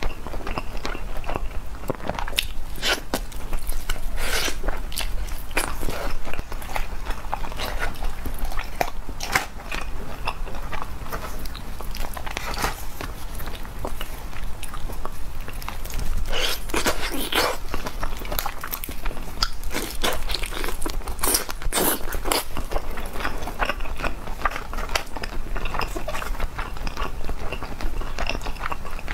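Close-miked eating of a spicy roast chicken: biting and wet chewing of the meat and skin, with tearing as pieces are pulled off the bird. An irregular run of crisp clicks and crackles, busiest in a few spells.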